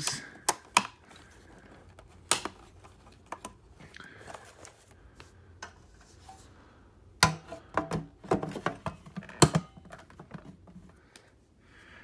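Hard clicks and knocks from a Simplicity 7350 upright vacuum being handled. There are a few single clicks in the first few seconds, then a burst of several quick clicks and knocks from about seven to nine and a half seconds in.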